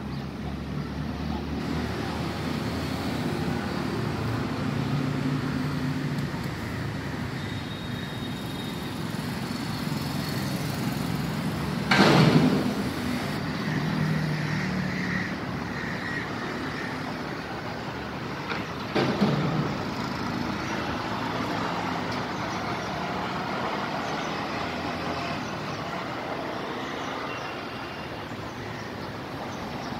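Street traffic: the engines of passing vehicles run steadily, broken by two short, loud noises about twelve and nineteen seconds in.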